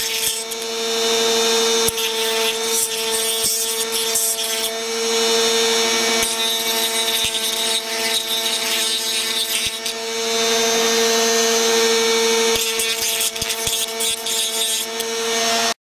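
Dremel rotary tool running with a steady whine, its bit grinding against the inside of a walnut shell to smooth it, so that a harsher rasp swells and fades as it bites. It cuts off suddenly near the end.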